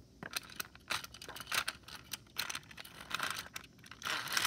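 Toy subway cars handled by hand on their track: a run of small clicks and rattles, then a longer rustling scrape near the end.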